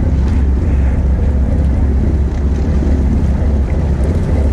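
Wind buffeting the microphone with a steady low rumble, over sea water splashing and lapping against the boat's hull.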